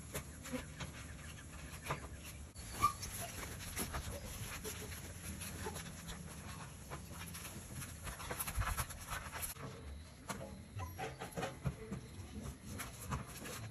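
Dobermann puppies eating chicken wings with their heads inside a tipped-over metal bin: a steady run of small crunching, clicking and scraping noises, with snuffling and panting.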